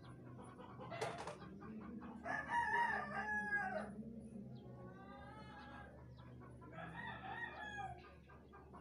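Three rooster crows: the first and loudest about two seconds in, then two more. A brief sharp noise comes about a second in.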